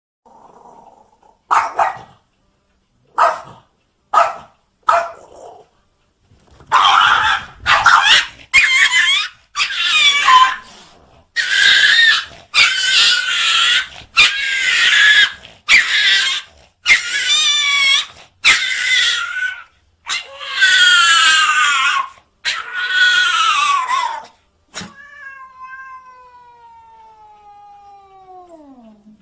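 Domestic cat yowling over and over, a long run of drawn-out, wavering caterwauls about a second each. Near the end a fainter, long call slides steadily down in pitch.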